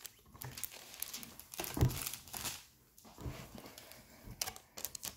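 Packaging and cards being handled on a tabletop: irregular crinkling and rustling with small knocks, strongest about two seconds in.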